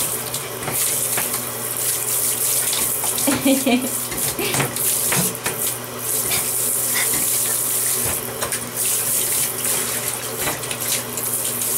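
Water spraying steadily from a handheld shower head into a bathtub and over a wet husky puppy, with scattered splashes.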